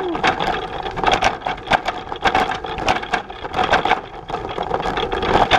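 Bullitt cargo bike rattling over a rough forest trail, its frame and cargo box giving many irregular knocks and clatters on the bumps.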